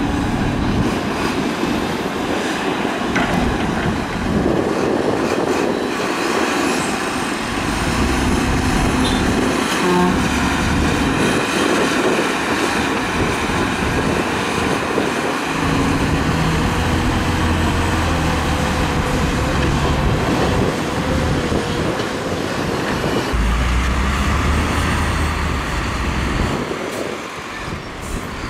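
Excavator diesel engine and hydraulics working under load, a steady mechanical din. The engine's low hum swells several times, with faint metallic clicks and squeals over it.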